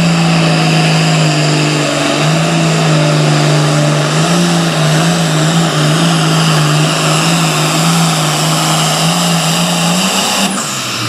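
Super Farm pulling tractor's diesel engine running hard and steady at high rpm under load during a pull, with a high whine above the engine note. Near the end it cuts back abruptly as the pull ends.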